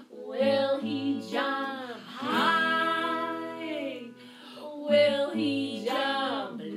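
Women singing a children's song with long held notes, accompanied by a strummed acoustic guitar.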